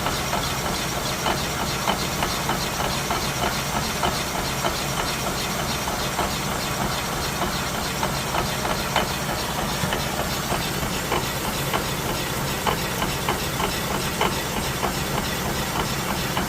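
Toyota Camry XV30 in motion: steady running and road noise with a low hum, and light, uneven knocks about once or twice a second. The owner takes the knocking for a failing CV joint or wheel hub bearing.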